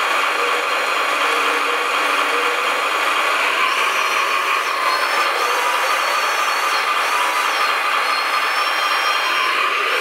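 Radio-controlled model LiuGong wheel loader working its boom and bucket: a steady mechanical whir, with high electric whines that step up and down from a few seconds in as the arm moves.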